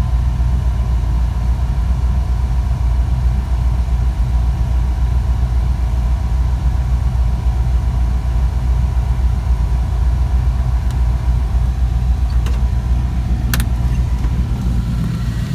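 Ford 351 Windsor V8 idling steadily with a deep, even rumble, with one short click about three-quarters of the way through.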